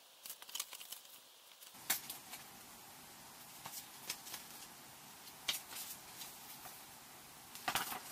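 Sheets of paper and printed manuals being handled: soft rustling broken by a few sharp, crisp flaps of paper, with several in quick succession near the end.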